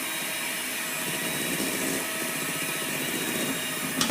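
Electric mixer running steadily, beating softened butter and vegetable shortening in a bowl. A sharp click or knock comes near the end.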